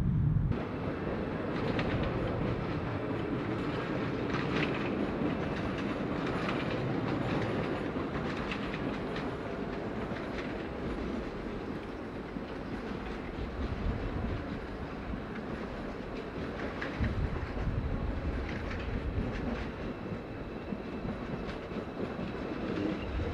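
A train running on station tracks: a steady rumble with the wheels clicking irregularly over rail joints and points.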